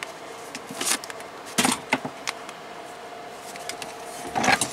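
Hands rummaging through coaxial antenna cables and parts: scattered rustles and light clicks, growing busier near the end, over a faint steady hum.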